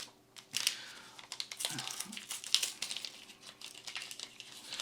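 Foil trading-card booster pack wrapper crinkling and rustling in the hands as it is opened, with small irregular clicks and crackles.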